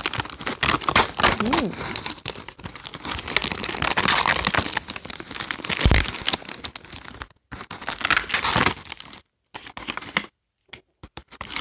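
Doll packaging crinkling and tearing as a toy doll is worked out of its box, a dense crackle for about seven seconds, then one short burst and a few scattered rustles and clicks near the end.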